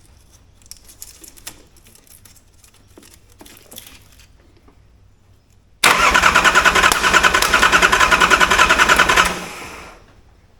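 Nissan RD28 diesel engine turned over by its starter motor for about three and a half seconds, in a fast even rhythm, then winding down without catching. A few faint clicks come before it.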